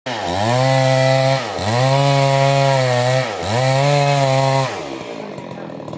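Stihl MS 382 two-stroke chainsaw ripping lengthwise along a log at full throttle. Its engine note dips sharply and recovers twice. Near the end the throttle is released and the engine drops toward idle.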